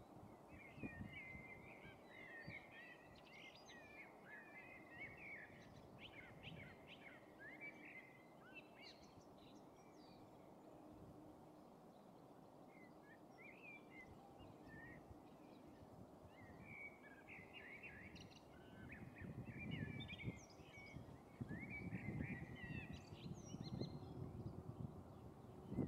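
Faint background chatter of small songbirds: many quick chirps and twitters, in bursts, over a low outdoor rumble that grows louder in the last few seconds.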